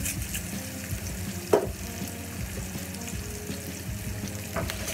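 Sliced onion frying in olive oil in a pan, a steady gentle sizzle. A sharp knock comes about one and a half seconds in, and a lighter one near the end.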